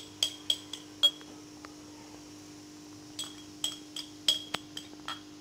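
A metal spoon clinking against a glass bowl while yogurt is spooned out onto chicken pieces: a quick run of sharp, ringing taps in the first second, then another run from about three seconds in. A faint steady hum sits underneath.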